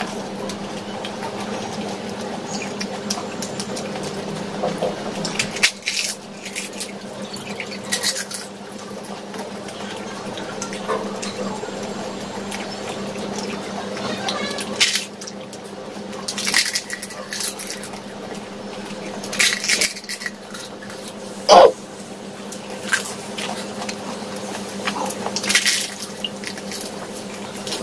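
Close-up eating sounds of giant pani puri: crisp fried puri shells cracking and crunching, with wet chewing and squishing of the water-filled puris, in irregular bursts over a steady low hum. One louder sharp crack comes about two-thirds of the way through.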